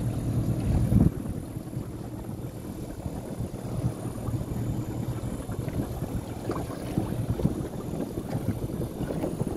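A small boat engine running steadily, then cut off abruptly about a second in. After that there is an uneven hiss of water and wind with scattered small knocks.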